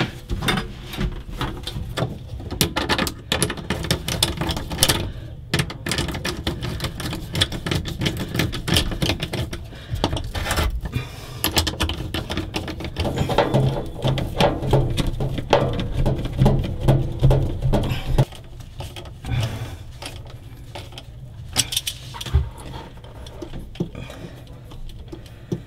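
Large stainless worm-drive hose clamps (Jubilee clips) on a boat's engine exhaust hose being tightened with a nut driver: fast runs of ticking and clicking as the screw turns, mixed with knocks of tools against metal. It gets quieter after about eighteen seconds.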